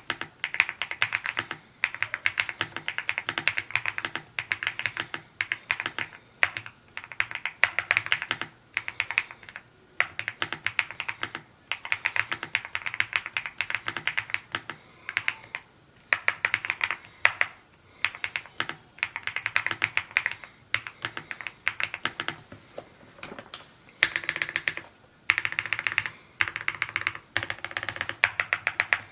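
Evo80 mechanical keyboard being typed on quickly: fast runs of key clacks broken by short pauses.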